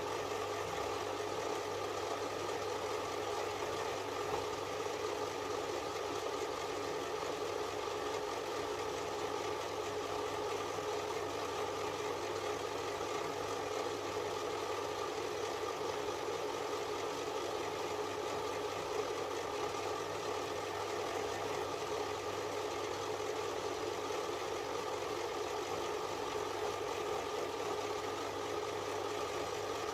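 Small metal lathe running steadily at constant speed, its motor and gearing giving an even hum.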